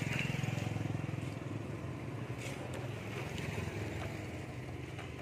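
An engine running steadily, a low even drone that slowly fades, with a few faint clicks and rustles of stiff insulating paper being handled.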